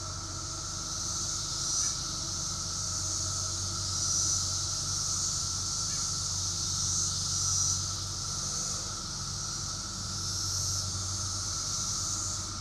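Chorus of 17-year periodical cicadas: a steady droning buzz, with a higher hissing buzz that swells and fades every few seconds, over a low steady hum.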